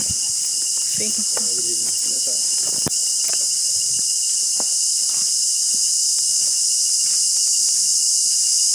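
Loud, steady high-pitched drone of a tropical forest insect chorus, with a thinner, lower steady tone under it. Faint footsteps and a brief faint voice sound through it about a second in.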